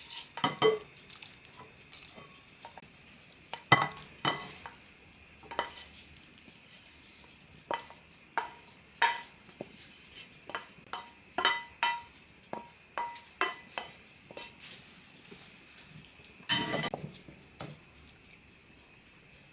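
A utensil clinking, knocking and scraping against cookware as the cooked salami-and-asparagus filling is spooned out to join the beaten eggs. The knocks come irregularly, with a longer scrape near the end.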